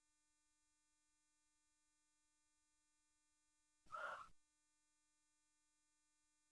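Near silence: room tone, broken once about four seconds in by a brief faint sound.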